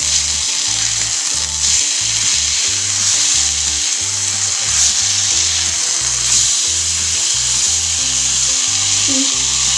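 Marinated jalebi fish (tilapia) sizzling steadily as it shallow-fries in oil on a tawa, over background music with a repeating bass line.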